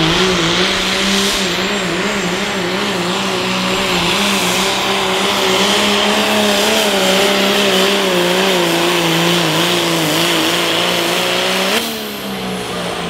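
Cummins turbo-diesel pickup engine at full throttle pulling a weight-transfer sled, with a loud hiss over a steady, slightly wavering engine note. About twelve seconds in, the throttle is let off and the engine drops abruptly to a lower idle as the pull ends.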